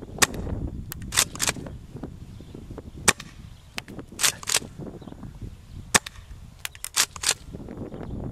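Tokyo Marui M870 gas airsoft shotgun firing, a sharp pop about every three seconds, with quick double clacks of the pump action between shots. Wind rumbles on the microphone.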